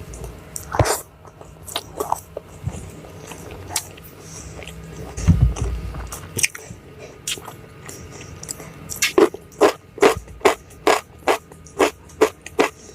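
Close-miked eating: mouth sounds of chewing and biting food, with a quick, regular series of crisp crunches, about three a second, in the last few seconds.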